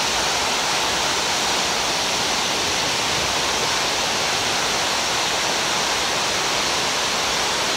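Water of a large monumental fountain cascading down its stepped tiers into the basin pool: a steady, even rush of falling water.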